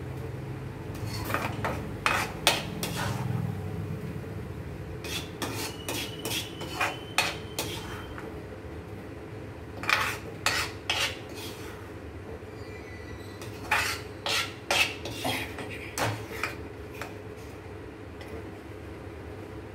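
Steel spatula scraping and knocking against a kadai while stirring a tomato and onion chutney mixture, in several bursts of clicks and scrapes with short pauses between.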